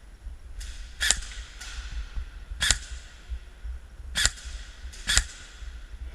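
Airsoft gun firing four single shots, each a sharp crack, spaced irregularly about one to one and a half seconds apart, with a couple of fainter clicks among them.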